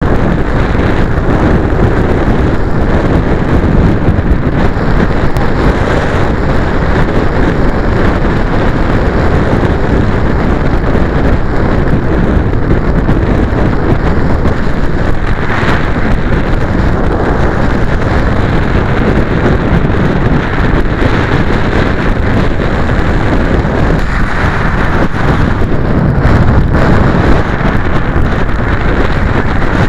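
Strong wind blowing across the microphone: a loud, steady, deep rushing noise with no tones in it.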